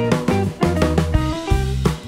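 Background music: a band track with drum kit and guitar, on a steady beat.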